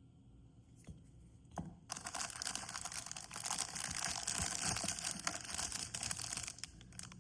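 Two light clicks, then about five seconds of crinkling, rustling packaging as small accessories are taken out of a product box.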